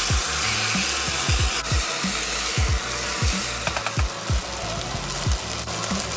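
Background electronic music with deep bass kicks, over a steady hiss of beef sizzling in a hot pot as it is stirred.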